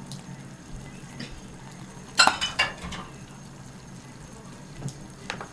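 Utensils clinking against a nabe hot pot: a quick run of sharp clinks about two seconds in and one more near the end, over a steady low hum.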